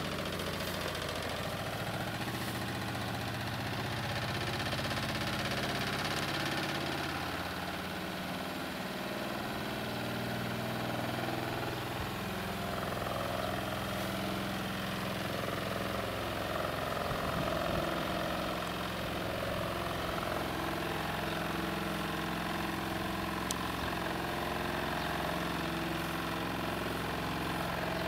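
A motor running steadily with a low hum, its pitch shifting slightly now and then.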